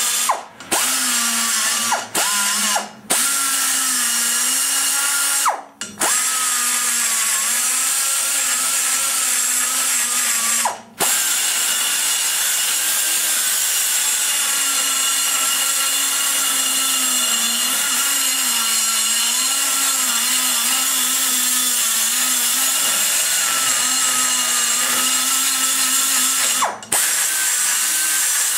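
High-speed die grinder cutting aluminum inside a cylinder head's exhaust port, rough-shaping the port's roof and sides. Its whine sags and recovers in pitch as the cutter loads up in the metal, and it stops briefly several times in the first eleven seconds and once more near the end.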